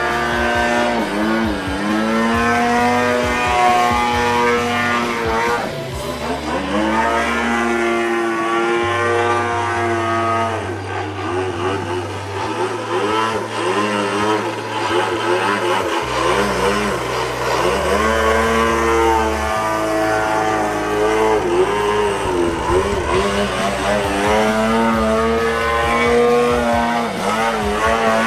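Model aircraft engine (OS Engines GT22 two-stroke gasoline single) pulling a radio-controlled Slick 540 through aerobatics. Its note rises and falls over and over as the plane climbs, dives and passes.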